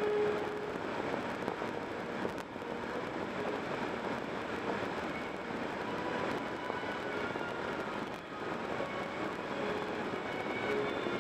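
Steady road noise of a car cruising at highway speed, heard from inside the car: tyres on the pavement and wind, an even rushing sound with no sudden events.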